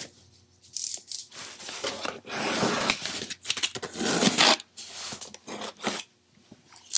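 Packing tape on a cardboard shipping box being slit and torn open, a series of short scraping, tearing strokes starting about a second in.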